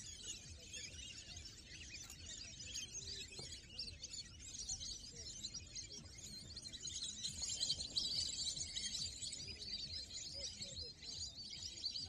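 A large flock of birds calling at once: a dense, overlapping chatter of high chirps, loudest about two-thirds of the way through.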